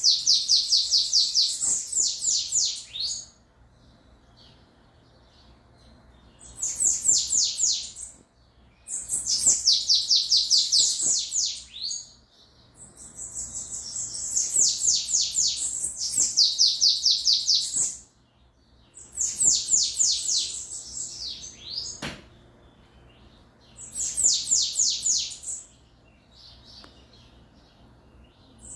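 Caged bananaquits (sibite) singing: fast runs of high, thin, falling notes, about eight to ten a second, in phrases of two to three seconds repeated every few seconds with short pauses between.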